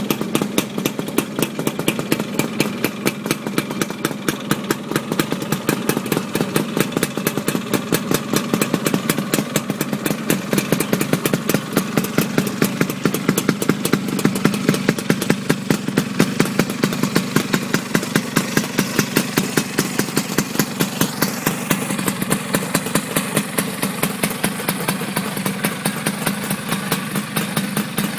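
Genuine Stella 2T scooter's 150cc single-cylinder two-stroke engine idling steadily, a rapid, even train of exhaust pulses.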